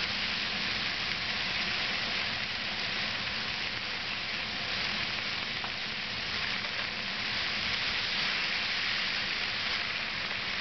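Cherry tomatoes and yellow bell pepper strips sizzling steadily in a frying pan during a stir-fry, an even hiss.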